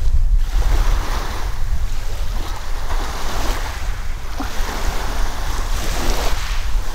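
Strong wind rumbling on the microphone over sea waves washing on the shore, the surf swelling every few seconds.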